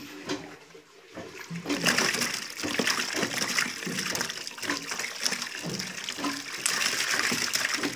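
Hands sloshing and splashing in shallow muddy water while groping through the mud for fish by hand. The splashing is irregular and grows louder and busier from about two seconds in.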